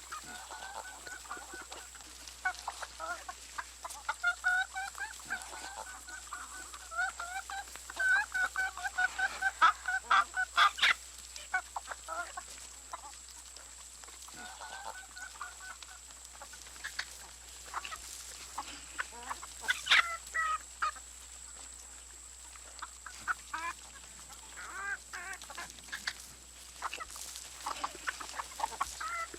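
Barnyard chickens clucking and calling in many short, repeated calls, busiest and loudest in the middle of the stretch and again about two-thirds through.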